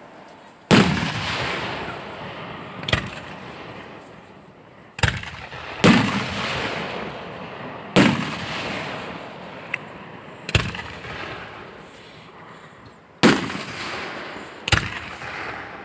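Fireworks display: aerial shells bursting overhead with about eight sharp bangs at irregular intervals. Each bang trails off over a second or two.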